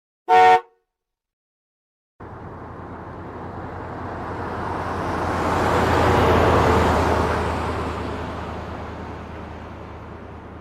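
A single short horn toot. After about a second and a half of silence, a vehicle passes by, growing steadily louder to a peak midway and then fading away.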